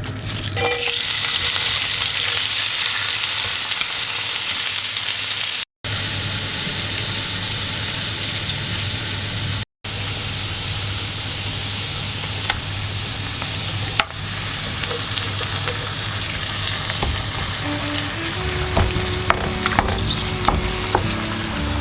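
Food sizzling steadily in hot oil in a frying pan while it is stirred, with a few light knocks of the utensil. The sound cuts out briefly twice.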